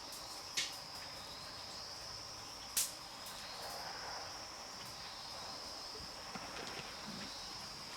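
Steady high-pitched insect chirring, with two sharp knocks, one about half a second in and one nearly three seconds in.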